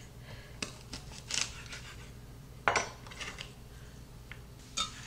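Chef's knife cutting through a bundle of fresh green beans onto a wooden cutting board: several separate sharp chops and knocks, the loudest nearly three seconds in, with lighter handling of the cut beans toward the end.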